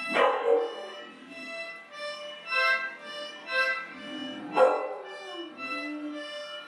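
A toy accordion plays wheezy reed notes while a Bulldogston dog howls along to it, twice: once at the start and again about halfway through, the second howl sliding down in pitch.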